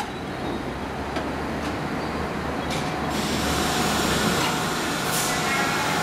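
Kawasaki R62 subway car braking to a stop: a steady low hum with a few widely spaced wheel clicks over rail joints in the first half, then rising brake noise with thin high squealing tones. A short burst of air hiss about five seconds in.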